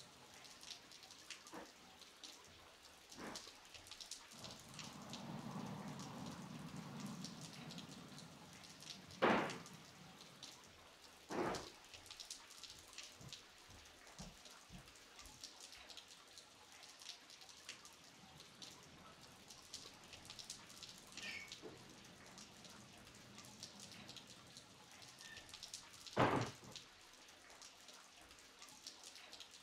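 Light rain falling steadily, a fine patter of small drops, with three heavier single drips landing close by, spread through it. A soft low rumble rises and fades a few seconds in.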